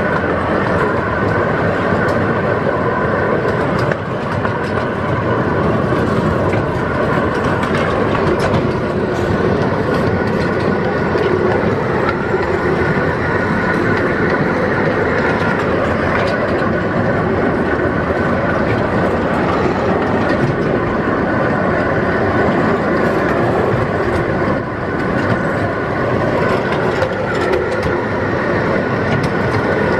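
Miniature park train running along its track, heard from an open passenger car: a steady, continuous rumble and rattle of the cars' wheels on the rails.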